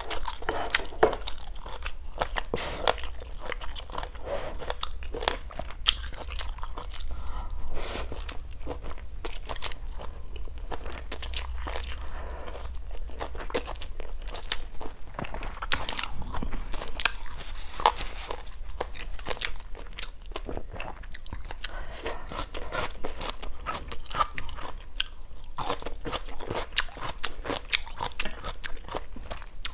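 Close-miked chewing: a continuous run of soft crunches and mouth sounds as food is bitten and chewed.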